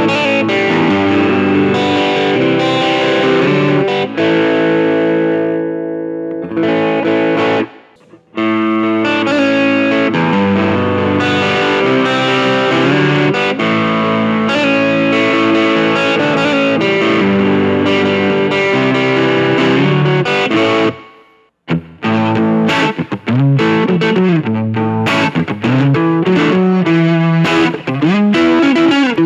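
Distorted electric guitar: a Stratocaster fitted with Seymour Duncan P-Rail pickups, played through a Nux Mighty Lite BT amp. Sustained chords ring out, with two brief stops, about eight seconds in and again about twenty-one seconds in. After the second stop comes a lead line with string bends.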